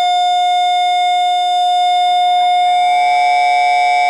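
A loud, steady electronic-sounding tone made of several pitches held together without any change in pitch, its upper tones growing a little brighter about three seconds in.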